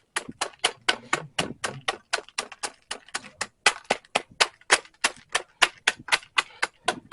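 Manual food chopper working on corn chips, crushing them for a crumb coating. It makes a quick, even run of sharp clacks, about four a second.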